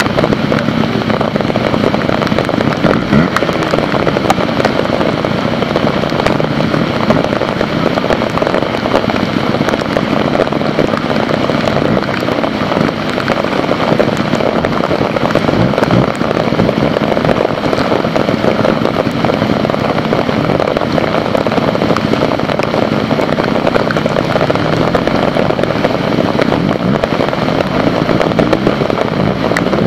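Heavy rain pattering densely and steadily, with trial motorcycle engines blipping and revving briefly now and then underneath.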